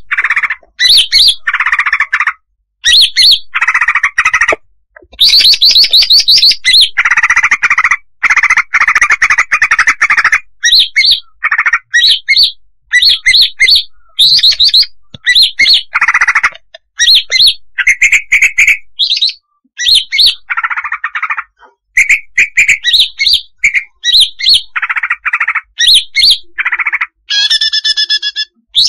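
Female cucak hijau (green leafbird) calling in rapid, near-continuous runs of short notes. Clear high chirps alternate with lower, scratchy, chattering notes, broken by brief pauses. This is the female's call used as a lure call.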